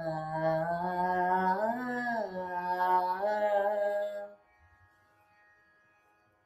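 A woman singing in Carnatic style, holding a long sung note with gliding ornaments, which ends about four seconds in. A faint steady drone of held tones carries on after the voice stops.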